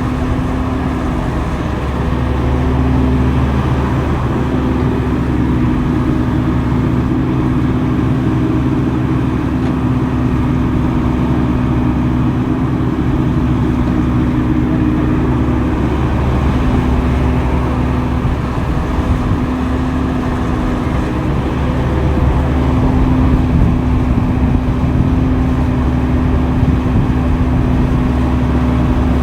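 Diesel engine of heavy earthmoving machinery running steadily under varying load, its pitch shifting slightly as the work goes on and growing a little louder about three-quarters of the way through.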